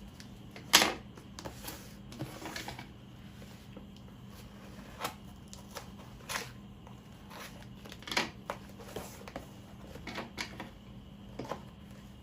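Cardboard packaging being handled and opened by hand: scattered taps, scrapes and rustles at irregular intervals, the loudest a sharp knock about a second in.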